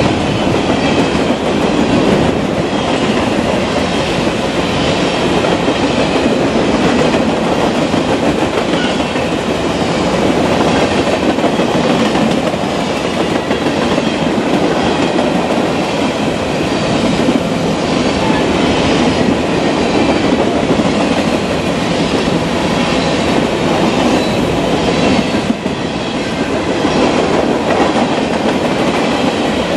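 Empty covered hopper cars of a freight train rolling past close by: a steady, loud rumble of steel wheels on rail, with faint clicks repeating in an even rhythm as the wheels cross the rail joints.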